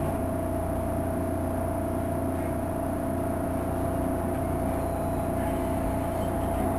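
Interior of a SEPTA Market-Frankford Line Adtranz M4 subway car in motion: a steady rumble of the car running on the rails, with a constant whine held at one pitch.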